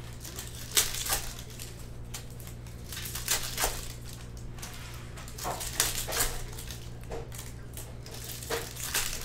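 Baseball-card hobby boxes and foil card packs being torn open and handled: irregular bursts of crinkling, tearing and rustling of cardboard and wrappers.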